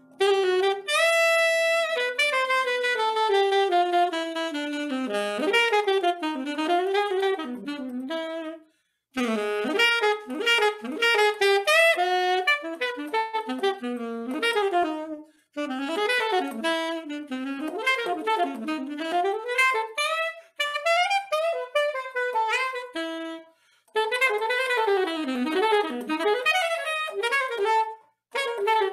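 A saxophone playing quick, winding melodic runs, phrase after phrase, with short breaks between phrases.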